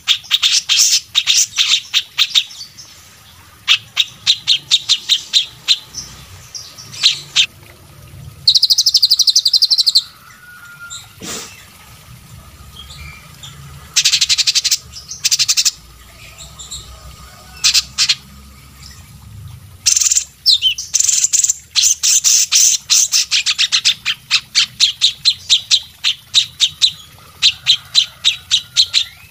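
Songbirds singing in bursts of rapid, high-pitched chattering trills and strings of sharp chip notes, with brief pauses between phrases.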